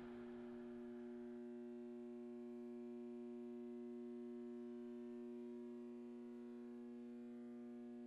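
Faint, steady drone of several held tones sounding together, unchanging in pitch, with the lowest two the strongest.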